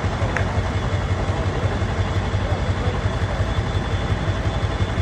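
Pickup truck engine idling steadily, a fast low throb with no change in speed.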